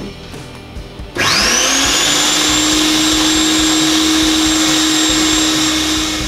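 Electric meat grinder switched on about a second in: its motor spins up with a quick rising whine, then runs steadily while chunks of raw meat are pushed down the feed tube to be minced.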